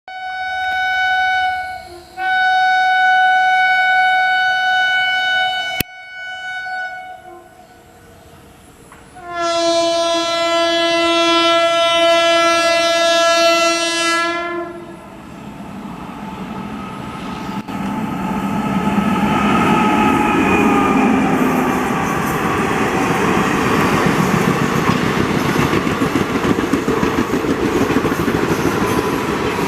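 WAP-5 electric locomotive's horn sounding hard: a short blast and a long blast in the first six seconds, then a second long blast on a slightly lower pitch from about nine to fourteen seconds. After that the train's running noise takes over, wheels clattering over rail joints, growing loud and staying steady to the end.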